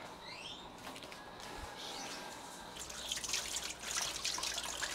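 Kitchen tap running into a stainless-steel sink as fresh bay leaves are rinsed under it, the water splashing and dripping. The running water grows louder about three seconds in.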